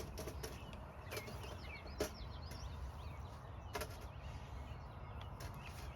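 Faint chirps from chickens, with a few light, irregular knocks (about five in six seconds) from work on the frame, over a low steady background rumble.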